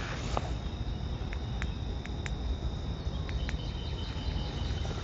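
Crickets chirring steadily, with a few short clicks over it.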